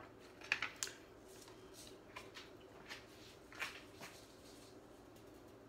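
A few faint clicks and rustles of things being handled in a kitchen, over a low steady hum.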